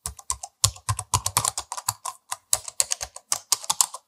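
Computer keyboard typing: a quick run of uneven key clicks, about five a second.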